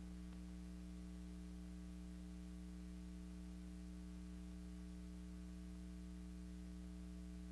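Steady low electrical mains hum with faint hiss, with no other sound; the film itself has no soundtrack.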